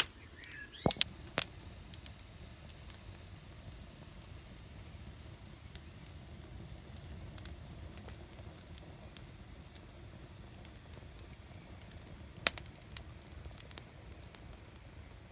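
Wood fire in a fire pit burning fiercely: a steady low rumble with scattered sharp crackling pops, a couple about a second in and the loudest near the end.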